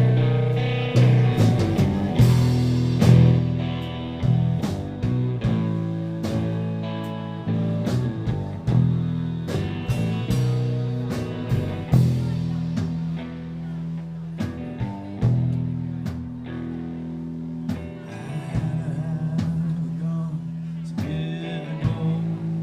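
Live blues-rock music: sustained guitar notes with frequent sharp percussive hits.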